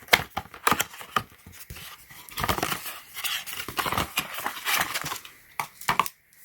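Handling of a magnetic self-winding charging cable and its packaging: a run of sharp clicks and short rustles.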